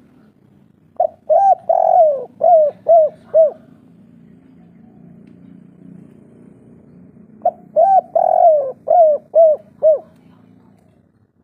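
Spotted dove cooing its 'kuk 3' song twice, the phrases about six seconds apart. Each phrase is a short lead note, then a longer coo that falls away, then three quick clipped coos.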